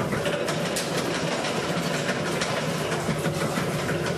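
Belt-driven rubber sheet rolling mill running steadily, its grooved rollers pressing a coagulated latex sheet into a flat sheet of natural rubber.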